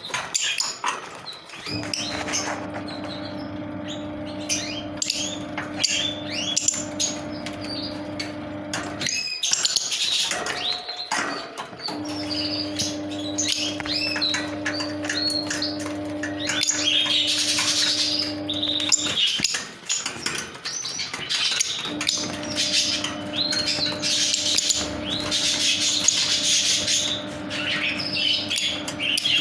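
Lovebirds chirping shrilly and almost without pause, many short rapid calls. Under them runs a steady low hum that cuts out twice for a few seconds.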